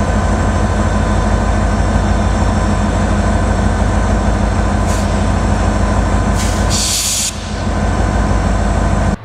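An EMD SD40 and two GP20 diesel locomotives working hard up a steep grade, their two-stroke engines running with a steady, dense pulse. A brief hiss cuts in about seven seconds in.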